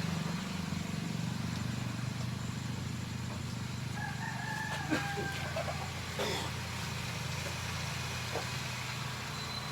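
A rooster crows once, about four seconds in, over the steady low running of a motorbike engine that belt-drives an air compressor. A few light clicks follow the crow.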